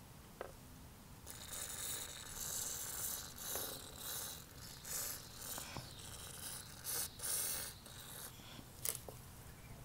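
WD-40 aerosol spray can squirting through its straw onto a car door's lower hinge to lubricate it: several short hissing squirts of varying length, starting about a second in.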